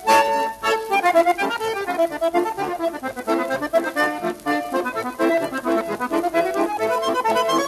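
Lively accordion music, quick repeated notes in a steady rhythm.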